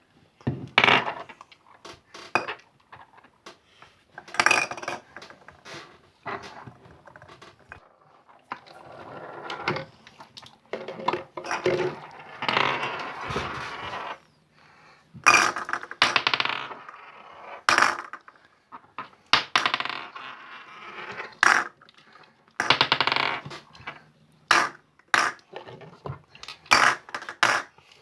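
Slime being handled and squeezed by hand: a long run of short, sharp clicks and pops, with some longer squelching stretches.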